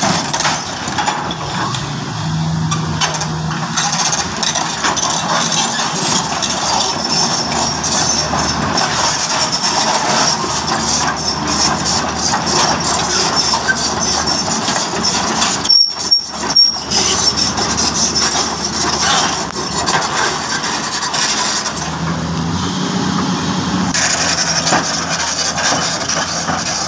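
Crawler excavator's diesel engine running under load with its hydraulics working as the machine drives itself down off a transport truck. A steady, dense mechanical noise, with a brief break about halfway through.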